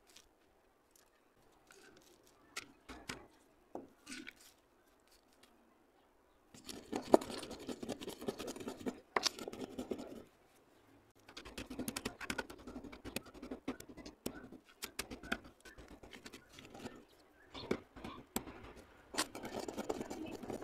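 Broken slate pencil pieces, first clicking lightly as they are handled, then ground and crushed between the palms in dense gritty crunching from about six seconds in, with two short pauses.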